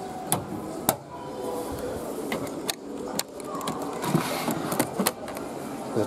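Scattered sharp clicks and knocks, unevenly spaced, over a steady background hum.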